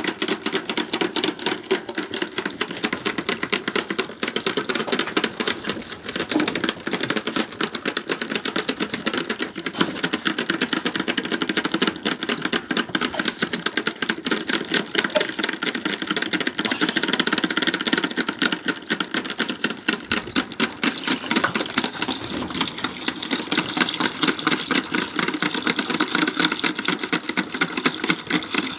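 Several lambs sucking milk from the rubber teats of a multi-teat bucket feeder: rapid, overlapping sucking clicks that keep going without a break.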